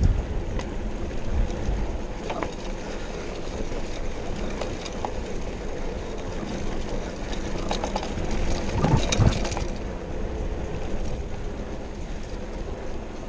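Mountain bike ridden fast over a dirt trail: tyres rolling on dirt and the bike rattling, with wind rumbling on the microphone. A burst of louder clattering knocks comes about nine seconds in as the bike goes over rough ground.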